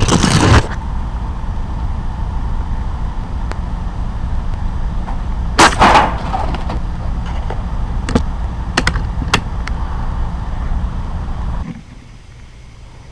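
Two shots from a Benjamin Discovery .22 PCP air rifle, one right at the start and one about six seconds in, followed by a few lighter clicks. Underneath is a steady low hum that cuts off near the end.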